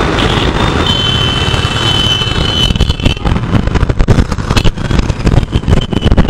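A Yamaha FZ V3.0 motorcycle being ridden through traffic, its engine and road noise heard under heavy, ragged wind buffeting on the microphone. A thin, high, steady tone joins in about a second in and fades after a couple of seconds.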